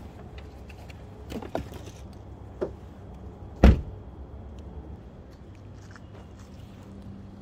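A couple of light knocks, then one heavy thud about three and a half seconds in, over a steady low hum.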